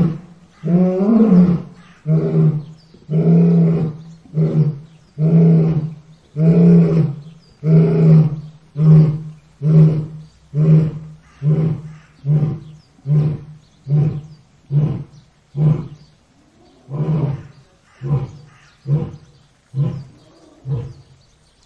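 Lion roaring in a bout: a few long, loud roars, then a run of shorter, quicker grunting roars that trail off, with a brief pause and a few more grunts near the end.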